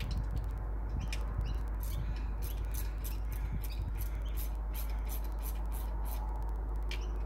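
Light, irregular clicks and ticks, a few a second, from hand tools and engine parts being handled in an open engine bay, over a steady low rumble.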